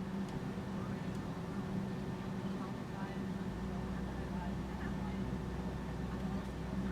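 Jet aircraft engines running with a steady hum and noise. A deeper low hum joins about three and a half seconds in, ahead of the takeoff.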